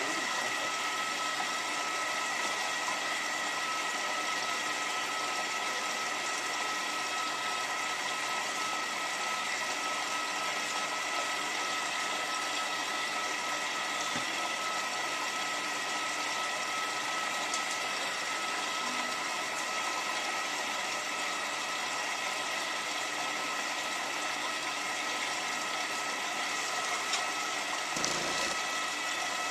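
Hotpoint 9534A washing machine filling with water at the start of a descaling wash, a steady hiss of water running in through the inlet valve and detergent drawer, with a constant whine in it.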